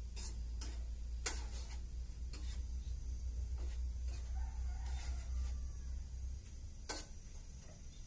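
Scattered sharp clicks, the loudest about a second in and just before seven seconds, over a low steady hum that drops away after about six seconds.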